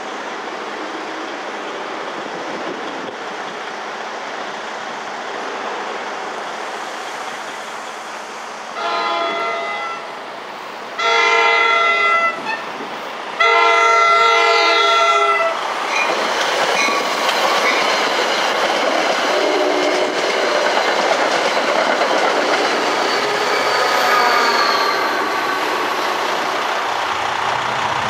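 Passenger train horn sounding three blasts as the train approaches a grade crossing, the last blast the longest, followed by the train passing with wheels clattering over the rails. Mechanical crossing bells ring under it.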